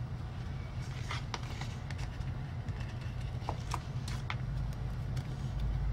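Faint paper handling: a few light clicks and rustles as stickers are pressed onto a planner page, over a steady low hum.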